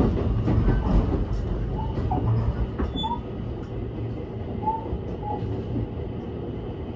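Running noise heard inside a JR West 223 series 2000 subseries electric train's motor car: a steady rumble of wheels on rail that slowly eases off. It carries a few short, faint high squeaks.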